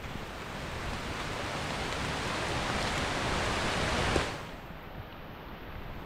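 Steady rushing of water, growing louder for about four seconds and then dropping abruptly to a quieter rush.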